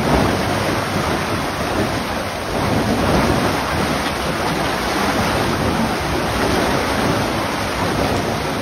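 Loud, steady rush of water churning through a concrete sluice gate.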